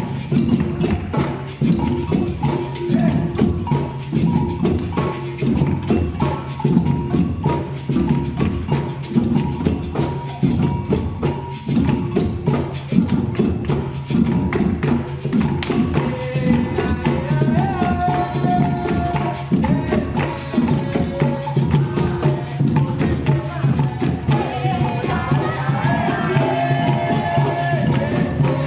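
A group of hand percussion instruments playing a steady, dense rhythm together, with wooden-sounding strikes prominent. A melody joins over the rhythm about halfway through.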